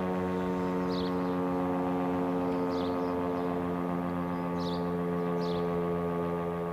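Federal Signal STH-10A tower-mounted civil defence siren sounding its steady Alert signal, holding one pitch throughout. A few short high chirps sound over it.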